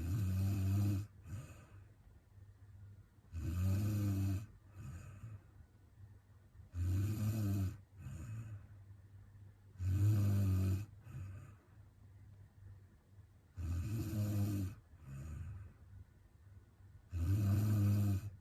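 A woman snoring in her sleep: six loud, low, buzzing snores, each about a second long and coming about every three and a half seconds, each followed by a short, softer sound.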